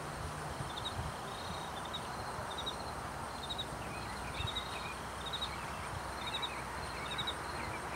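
Outdoor ambience: a steady low background rumble with an insect chirping in short pulses that repeat about once a second, plausibly a cricket.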